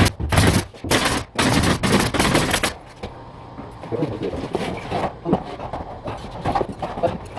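A run of loud, harsh bursts of noise, some short and one lasting about a second, like rapid impacts or scraping. About three seconds in they give way to quieter scattered clatter.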